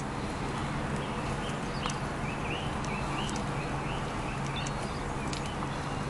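A short run of soft chirps from budgerigars, between about two and four seconds in, over a steady background hiss and low hum, with a few scattered clicks.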